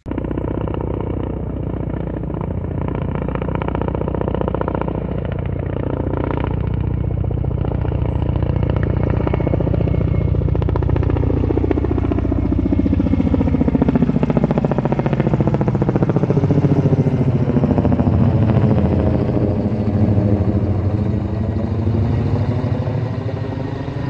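Firefighting helicopter with a slung water bucket flying low overhead, its rotor and turbine noise loud and continuous. The pitch sinks as it passes over and climbs again near the end.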